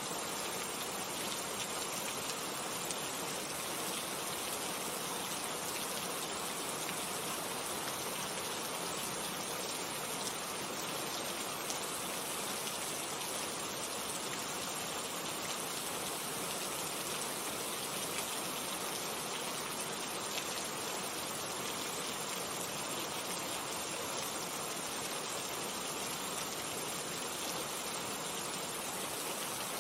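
Steady rain falling, an even hiss of many raindrops with faint individual drop ticks.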